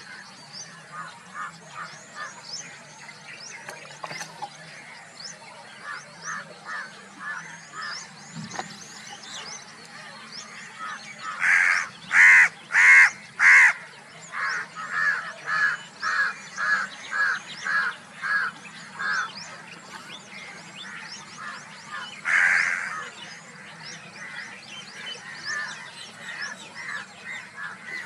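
A bird calling in runs of short, loud, honking notes, about two a second. The loudest is a group of four about twelve seconds in, followed by a run of about a dozen weaker notes; many faint high chirps sound throughout.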